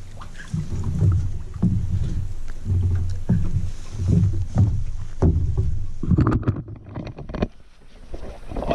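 A hooked bowfin thrashing and splashing in the water at the edge of a wooden dock as it is brought in. Dull thumps come about every half second, and a flurry of sharp splashes follows a few seconds before the end.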